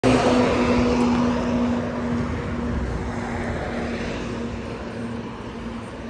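Truck engine running as it passes close by, a steady hum that is loudest at the start and fades away over the next few seconds.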